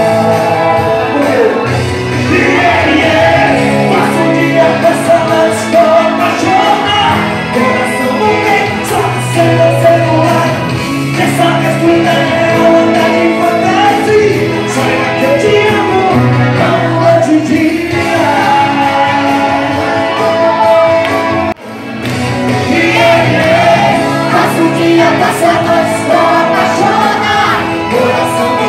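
Live sertanejo band playing in a large room: a singer over drums and keyboard, with people singing and shouting along. The sound cuts out for an instant about three-quarters of the way through, then the song carries on.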